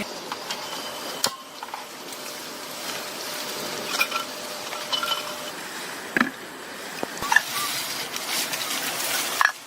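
Camp cooking sounds: scattered light clinks and knocks of cookware and utensils, with a rushing hiss for the last two seconds or so that stops sharply.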